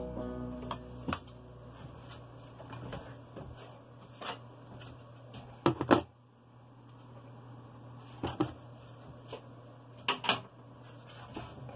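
Handling clicks and knocks of a hacksaw being set down on a cutting mat and moved by hand, in short scattered bursts. The loudest come as a quick double knock about six seconds in, with another cluster about ten seconds in.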